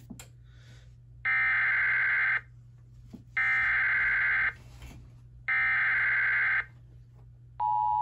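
TFT EAS 911 encoder sending an Emergency Alert System SAME header: three identical digital data bursts, each about a second long with about a second's gap between them. Near the end the steady two-tone EAS attention signal starts, with a low hum underneath throughout.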